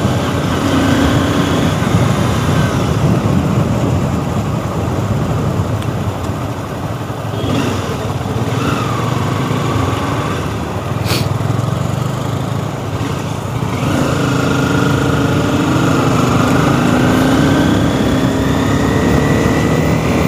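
Motorcycle on the move: heavy wind rush on the microphone with the engine running underneath. From about fourteen seconds in, the engine note rises as the bike accelerates.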